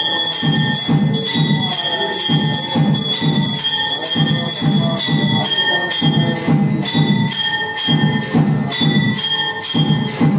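Temple bells rung rapidly and steadily for the aarti, about two to three strokes a second, with ringing high tones and a deep pulse beneath each stroke.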